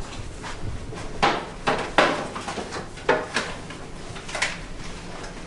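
Several short knocks and clatters of objects being handled, spaced irregularly, with the loudest about two seconds in.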